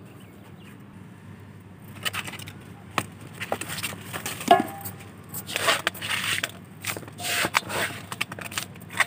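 Rice-husk potting mix being scooped from a metal tub into a plastic pot: irregular scraping and crackling rustles with small clicks, starting about two seconds in.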